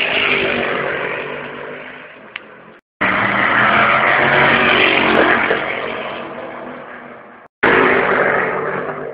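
GT race cars passing at speed, engines loud as each goes by and then fading. The sound cuts off sharply twice, about three seconds in and again near the end, each time starting again loud with another pass.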